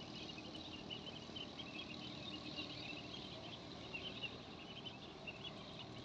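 A large flock of ducklings peeping: many short, high cheeps overlapping in a constant chatter, thickest in the first half.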